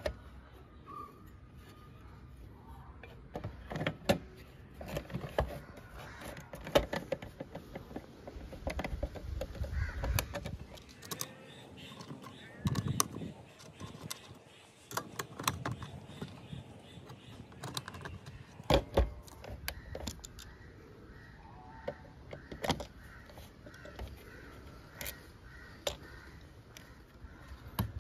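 Scattered clicks and knocks of small metal parts being handled while working on a Mercedes-Benz W123 instrument cluster's circuit board, housing and screws.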